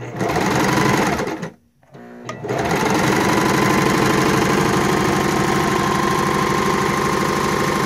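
Kenmore 385.15408500 electric sewing machine running with its needle stroking rapidly. It runs for about a second and a half, stops, gives a short burst, then starts again about two and a half seconds in and keeps running steadily at speed.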